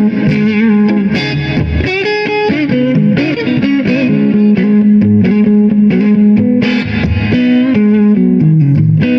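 Electric guitar played through a Donner Boost Killer boost pedal into a Blackstar HT40 valve amp, with the pedal's volume cranked and gain, treble and bass at 5, giving a lightly broken-up crunch tone. A string of picked single-note lines with string bends and vibrato.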